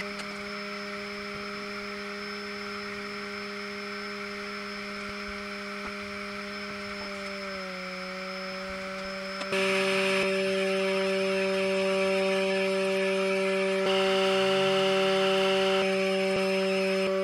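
Small fan motor of a handmade miniature hot-air popcorn popper running with a steady whine. The pitch dips slightly about eight seconds in. From about nine and a half seconds it is louder, with more overtones and a few faint ticks.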